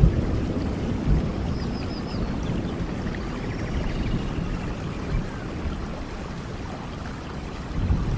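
Steady rain in a thunderstorm, with a low rumble of thunder that eases off over the first seconds. A few faint high chirps about two seconds in.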